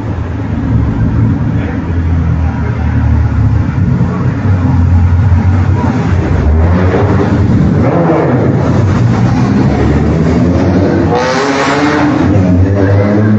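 Engines of 1950s racing sports cars running and revving, with the pitch rising several times as cars accelerate away. A short burst of hiss-like noise comes about eleven seconds in.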